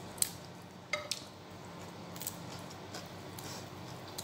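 Quiet eating sounds from a meal of fried fish and rice eaten by hand: a few short clicks and crackles about a quarter second and about a second in, then only faint ticks of handling over the plate.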